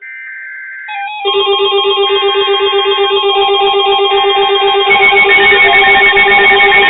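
A brief warbling NOAA Weather Radio SAME data burst, then weather alert radios sound their electronic alarms for an incoming warning: a loud, rapidly pulsing beep, joined about five seconds in by a second, higher-pitched alarm.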